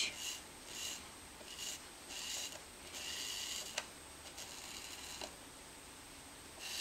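Hot tip of an electric Styrofoam cutter drawn through a thick Styrofoam plate in short strokes, tracing lines. It makes a faint, soft scratching rasp that repeats about every half to one second, with a couple of faint clicks.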